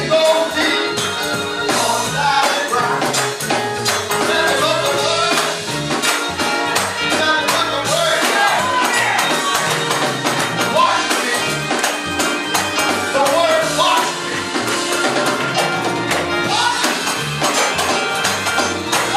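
Live gospel music: a band with moving bass notes and a steady tambourine beat, with a voice singing over it.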